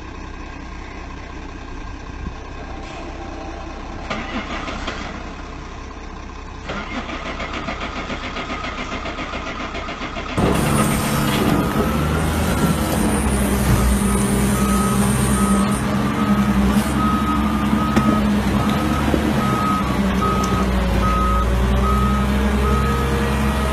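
A dump truck's diesel engine running quietly, then a wheel loader's diesel engine running steadily and louder, with its reversing alarm beeping about twice a second for most of the second half.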